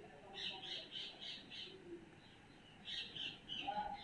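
A bird chirping faintly in the background: two quick runs of short, high notes, about four a second.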